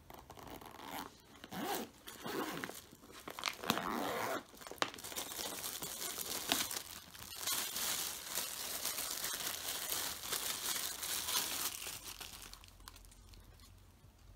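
Crinkling and tearing noises from unpacking and handling new goalkeeper gloves: irregular rustles for the first few seconds, then a continuous crinkle for several seconds that fades near the end.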